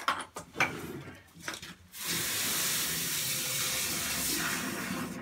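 A few knocks and clatters, then about two seconds in a steady rush of running water begins and stops shortly before the end.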